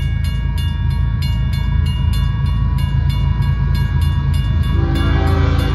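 Grade-crossing warning bells ringing at about three strokes a second over the deep rumble of an approaching Union Pacific GE C45ACCTE diesel locomotive. Near the end the locomotive's air horn begins to sound.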